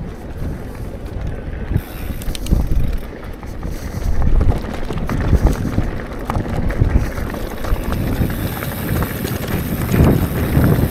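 Wind buffeting the camera microphone on a moving mountain bike, a loud uneven rumble, with scattered clicks and knocks from the bike rattling over rough trail.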